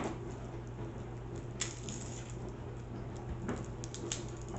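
Papery skin being peeled by hand off a garlic clove: a few faint crackles and clicks over a steady low hum.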